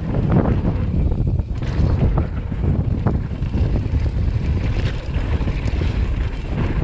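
Wind buffeting the microphone as a Commencal Meta HT hardtail mountain bike descends a dirt trail at speed, with the tyres rumbling over the hardpack. A few short clattering knocks come from the bike over bumps.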